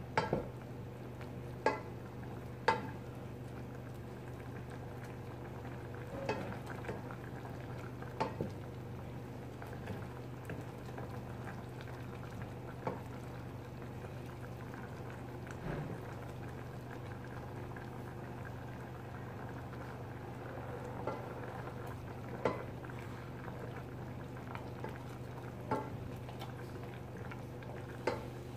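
Cream sauce bubbling in a stainless-steel saucepan as it boils down to reduce, stirred with a wooden spoon that knocks against the pot now and then. A steady low hum runs underneath.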